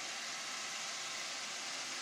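Roomba robot vacuum running, a steady hiss.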